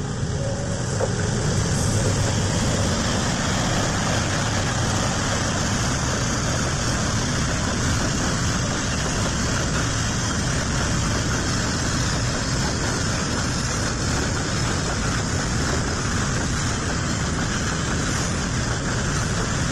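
Container freight train passing close by, hauled by a CC 206 diesel-electric locomotive. It grows louder about two seconds in as the locomotive goes by, then gives way to the steady running noise of the loaded container flat wagons rolling over the rails.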